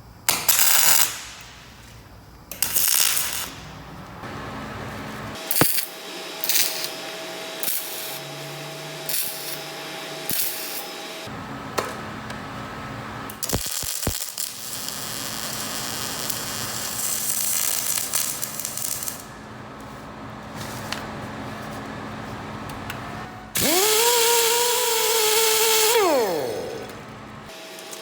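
Metalworking shop sounds: sharp metal clanks and knocks, a long hissing stretch in the middle, and near the end a power tool whining steadily for a couple of seconds before it spins down.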